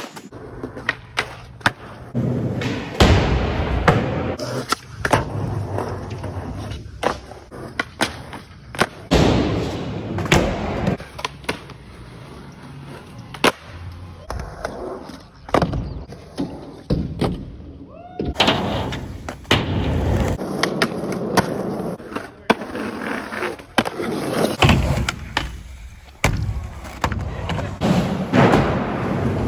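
Skateboards rolling over concrete with the hiss of the wheels, broken by many sharp pops and clacks as tails strike the ground and boards land, across several short clips.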